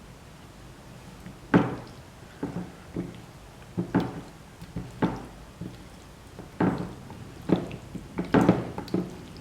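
Irregular knocks and thuds, about a dozen, starting a second and a half in, from anchovies and the plate being handled as the fish are mixed into the masala paste.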